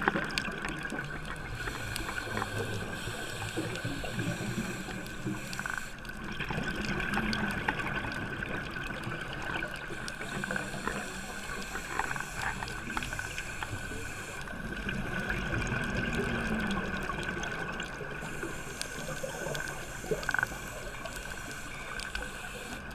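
Scuba diver breathing underwater through a regulator, with bubbling exhalations in three long cycles about eight seconds apart. A steady high tone runs beneath.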